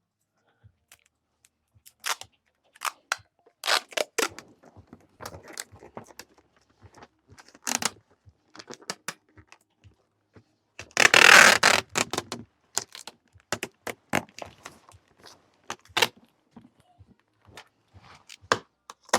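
Packing tape being handled and pulled off its roll to reseal a cardboard box: scattered clicks, crackles and scrapes, with one loud tearing rip lasting about a second and a half, about eleven seconds in.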